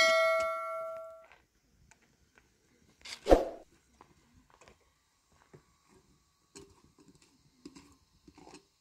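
A metal kitchen vessel is struck and rings, the tone dying away over about a second. About three seconds in comes a single dull knock, followed by small clicks and knocks of things being handled.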